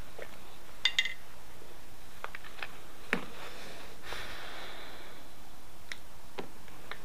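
Flintknapping tools being handled: two sharp, ringing clinks about a second in as the antler and stone tools are picked up from the pile, then scattered light clicks and a brief rustle of handling. Near the end come a few sharp clicks as an antler tine flaker is set against the edge of the flint arrowhead.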